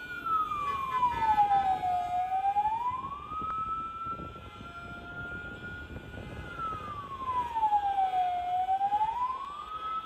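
A siren wailing: a single high tone that holds, slides down and back up, twice, over the noise of street traffic.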